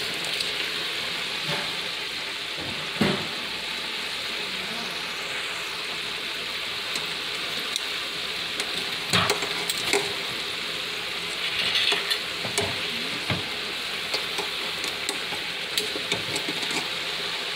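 Cornflake-coated chicken drumsticks sizzling steadily in hot oil in a deep fryer, with metal tongs knocking against the wire fryer baskets a few times as the pieces are turned.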